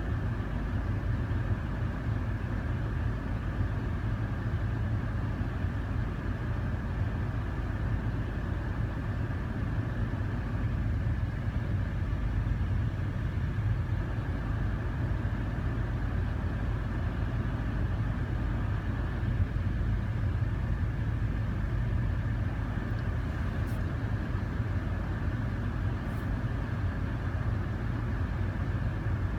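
Car engine idling steadily while running with a vacuum leak.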